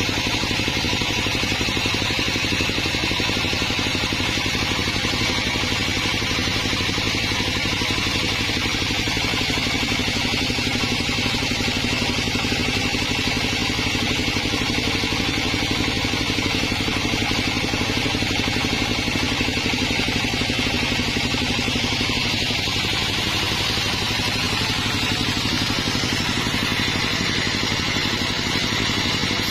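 Engine-driven sawmill running steadily, with a constant low engine hum and a high whine. Its tone shifts slightly about 22 seconds in.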